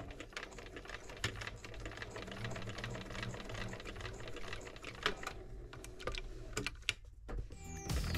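Bernina 930 Electronic sewing machine stitching through cork fabric: a fast, steady run of needle clicks over the motor's hum, with two short stops near the end.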